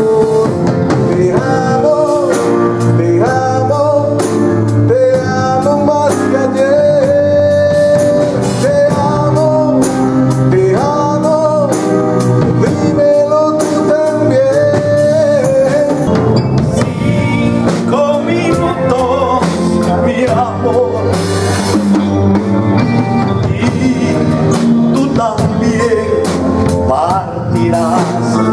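Live band playing a ballad: drum kit and electric guitar under a held, bending lead melody.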